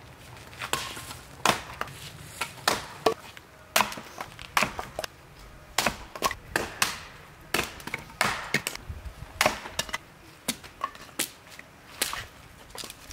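Axe chopping kindling from a log round on a chopping block: a run of sharp wooden chops and splitting cracks at irregular spacing, roughly one or two a second.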